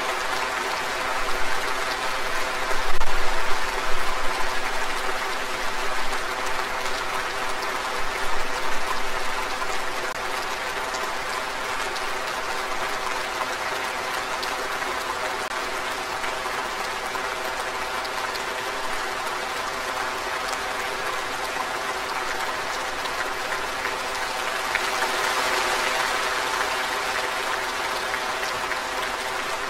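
A large crowd applauding steadily, with a few louder swells in the first ten seconds.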